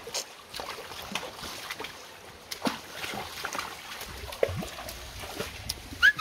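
Horse drinking from a shallow rocky stream: irregular slurps and small splashes of water at the muzzle, over the trickle of the creek. Right at the end, two or three sharp, short, rising high chirps.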